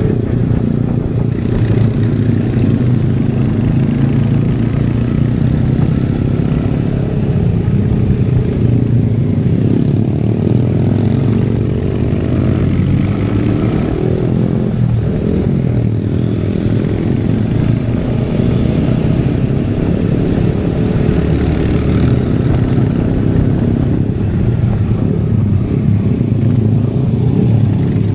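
Royal Enfield Hunter 350's single-cylinder engine and exhaust running on the move. The engine note rises and falls between about ten and sixteen seconds in as the throttle changes.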